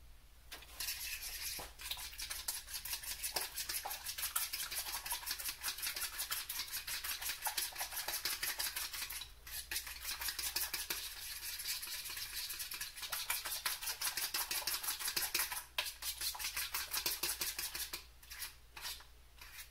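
Metal spoon briskly beating egg batter in a plastic mixing bowl: rapid scraping and clicking strokes against the bowl, stopping briefly a few times. It is a harsh, grating sound.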